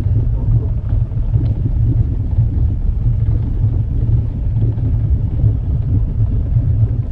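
Fishing boat's engine running under way: a steady low rumble.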